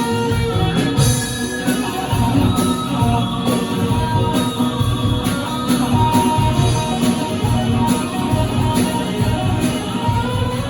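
Rock band playing live, guitar over a steady beat.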